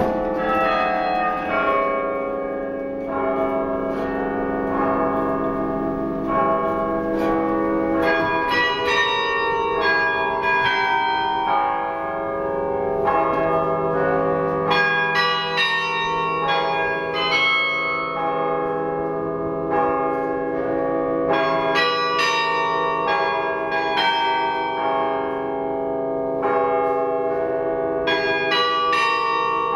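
A 72-bell bronze carillon played from its baton keyboard: a piece of music of struck bell notes ringing over one another, with deep bass bells sounding long beneath quicker, higher notes.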